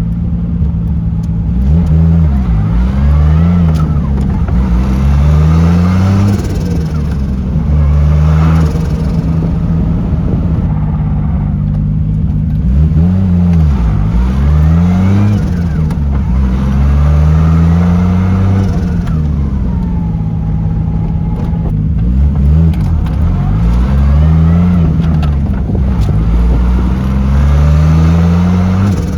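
Toyota 1JZ-GTE turbocharged straight-six accelerating at low revs, its note rising and dropping back about seven times as the car pulls and shifts through the gears. Turbo flutter can be heard as the throttle closes.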